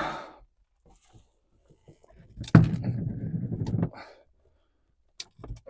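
A sharp knock followed by about a second and a half of rustling and handling noise, as things are rummaged through and thrown out of a car's interior, with a few small clicks around it.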